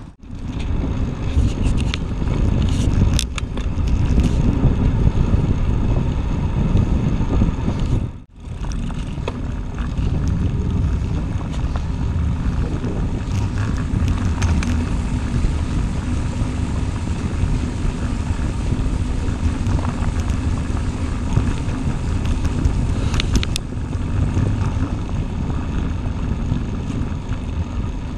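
Wind rushing over the microphone and the rolling rumble of a bicycle riding over brick paving, with a few sharp clicks. The sound drops out briefly about eight seconds in.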